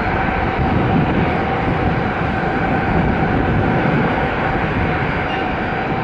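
Boeing 737-800's CFM56 jet engines running at taxi power as the airliner turns onto the runway: a steady rumble with a constant whine over it.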